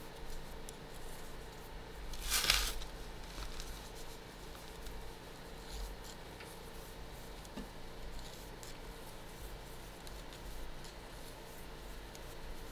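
Circular knitting needles clicking and scraping faintly against each other while cotton yarn is purled, with small scattered ticks. About two and a half seconds in there is a short, louder rustle.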